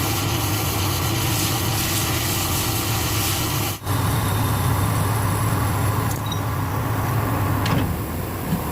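Lathe running: a steady motor hum under a wide wash of machine noise, with a brief drop-out about four seconds in.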